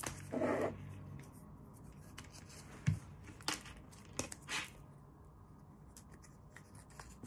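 Tarot cards handled on a wooden tabletop: a short rustle about half a second in, then several faint taps and clicks as cards are slid and set down.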